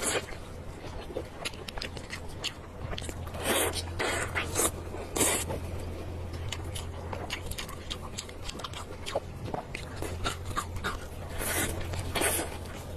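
A person eating: chewing and mouth sounds with many small clicks of utensils and tableware, a few louder scraping bursts, over a steady low hum.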